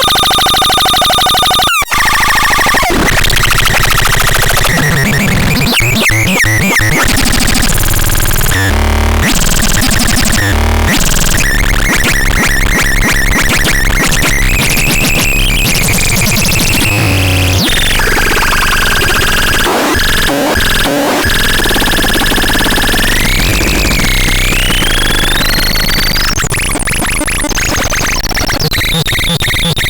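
Harsh, dense synthesizer sounds: buzzing tones mixed with noise, with pitches sliding up and down. There is a brief cut about two seconds in and a rising glide in pitch a few seconds before the end.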